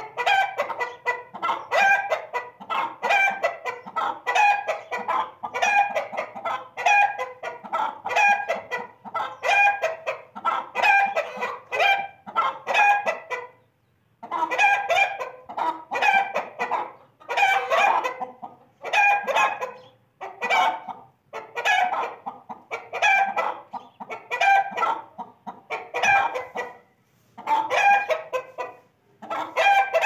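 Chickens clucking over and over in quick, even runs, broken by a few short pauses.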